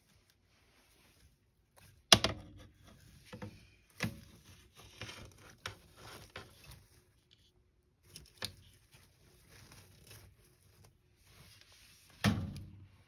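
Savanna monitor tugging at a hornworm held in plastic feeding tongs: a few sharp knocks and clatter, the loudest about two seconds in and another near the end, with light scratching and scrabbling in between.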